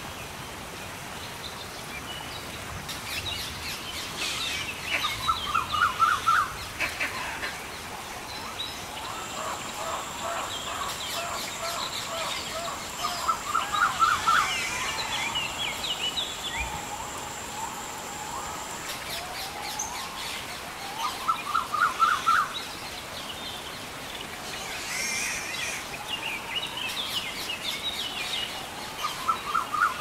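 Rainforest ambience: birds calling over a steady hiss of rain. One bird gives a quick run of rising notes about every eight seconds, and a thin, high steady tone is held for about ten seconds in the middle.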